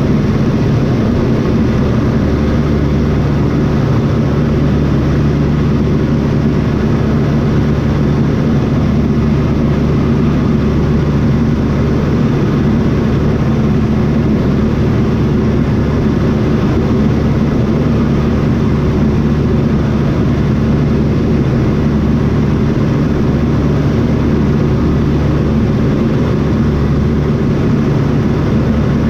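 Piston engine of a light propeller airplane running steadily.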